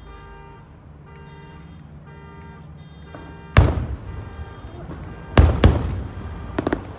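Aerial fireworks bursting: one loud boom about halfway through, two more booms in quick succession about two seconds later, then a few sharp crackles near the end. Before the first boom there is a steady repeating pitched sound in the background.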